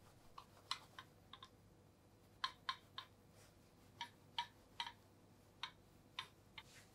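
Faint, irregular light clicks and taps, about a dozen, from a pudding mold being shaken and knocked against its plate to work the set milk pudding loose.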